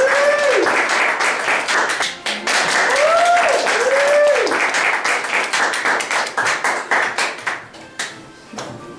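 A small audience clapping, with two bursts of whooping cheers that rise and fall in pitch. The applause thins out and dies away about eight seconds in.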